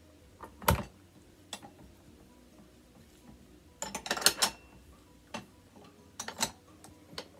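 Metal parts of an SKS rifle being handled and fitted back together during reassembly: metal-on-metal clicks and clinks. There is a sharp knock just under a second in, a quick run of clicks around four seconds, and a few more near the end.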